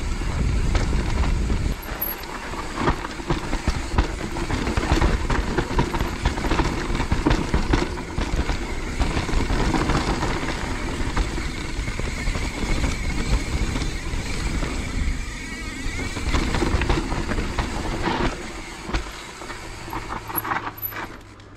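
Mountain bike descending a wet, rooty enduro trail: tyres running over roots and small drops, with a constant clatter of knocks from the chain and frame. It eases off for the last couple of seconds.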